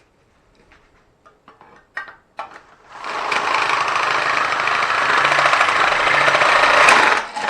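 DeWalt drill with a 3/4 inch bit running for about four seconds, boring a hole through the bottom of a Pringles can, with a steady rattling whir that starts about three seconds in and stops near the end. A few small handling clicks come before it.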